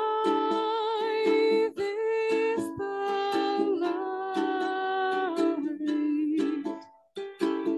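A woman's sung vocal in long held notes with vibrato, in two phrases, over a strummed electric ukulele. Near the end the voice stops and the ukulele strumming carries on alone.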